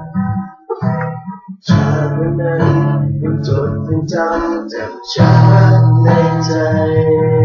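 Acoustic guitar being strummed, accompanying male voices singing a Thai pop song, with two strong strums, one near the start and one about halfway through.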